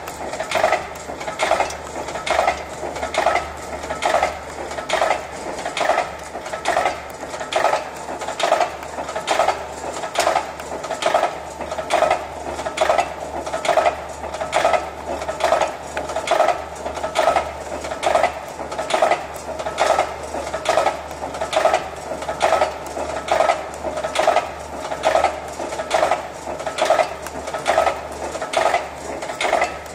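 Manesty 3 single-punch tablet press running, its punch and feed shoe cycling in a steady metallic clatter, one stroke a little more than once a second, as it compresses tablets.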